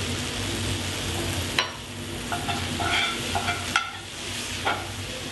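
Farro and forbidden rice frying in duck fat in a cast iron skillet, with a steady sizzle. A spoon stirs them and knocks against the pan, giving a few sharp clinks between about one and a half and five seconds in.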